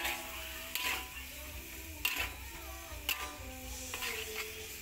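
A spatula scraping and stirring beef rendang in a metal wok, about one stroke a second, over the faint sizzle of the frying spice paste.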